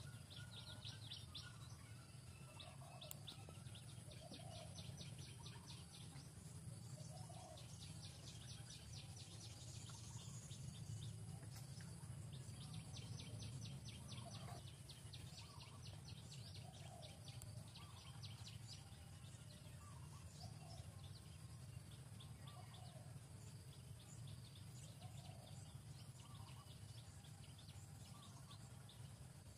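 Faint outdoor ambience: birds chirping in rapid high trills, with short calls repeating every second or two, over a low steady rumble.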